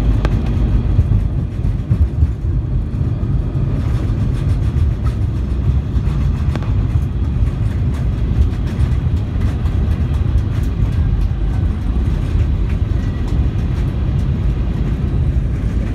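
Airbus A320 cabin noise on the landing rollout: a steady, heavy low rumble from the engine running with its thrust reverser deployed and the wheels rolling on the runway.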